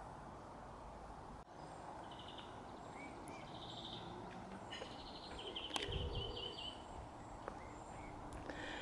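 Quiet rural outdoor ambience with a small songbird giving short trilled chirps in several brief phrases, and a soft low bump about six seconds in.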